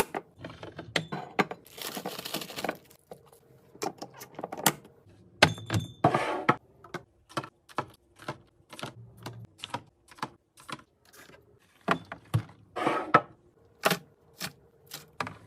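Irregular clicks, taps and knocks of plastic containers, lids and food packages being handled and set in place while a fridge is organized, with a few short rustles and a faint steady hum underneath.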